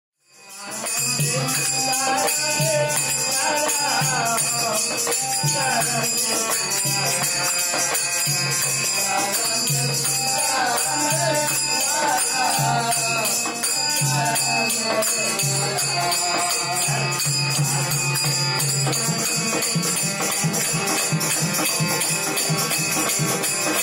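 Live harmonium playing, with low held notes and a melody, accompanied by steady jingling of small hand cymbals (manjira) and a voice singing along. The low harmonium notes drop away about 19 seconds in while the cymbals keep going.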